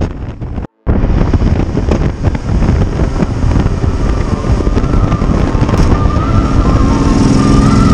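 Wind rushing and buffeting over the microphone on a moving Yamaha Super Ténéré 1200 motorcycle, with the bike's parallel-twin engine running beneath. The sound cuts out for a moment just under a second in. In the second half the engine note steps up in pitch as the bike accelerates.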